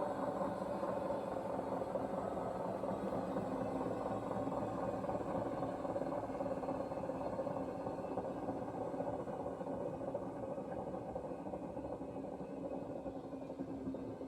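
Hoover washing machine running with a steady, terrible-sounding rattling whir and vibration. The owner is unsure whether it comes from a worn drum bearing or from the motor.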